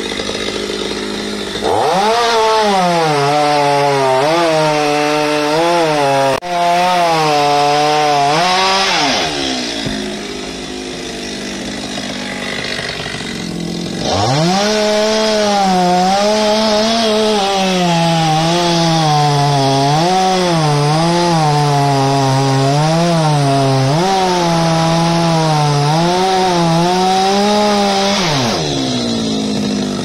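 Two-stroke petrol chainsaw cutting through a coconut palm trunk. It is revved up about two seconds in, its pitch wavering as the chain bites the wood, and eases off for a few seconds in the middle. It revs and cuts again until near the end, when it drops back.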